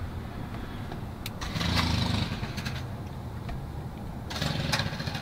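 An engine running steadily in the background, swelling briefly about two seconds in; a short hiss near the end.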